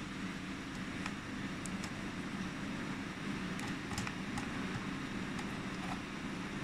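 Steady low machinery hum, with a few faint light clicks as small metal cable connectors are fitted and screwed onto a laser welding head.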